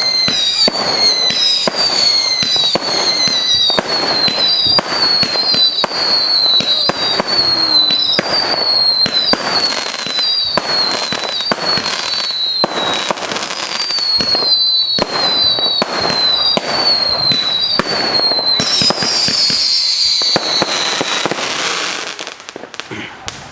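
Fireworks display: a dense barrage of bangs and crackling, with short high whistles falling slightly in pitch about once a second. It thins out and gets quieter a second or two before the end.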